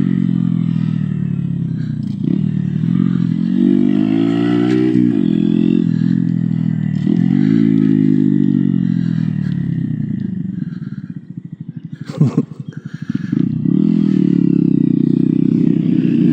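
Honda Grom's 125 cc single-cylinder four-stroke engine riding under throttle, its pitch rising and falling as it pulls through the gears. About eleven seconds in it drops off to a choppy low putter with a sharp click, then picks back up to a steady run.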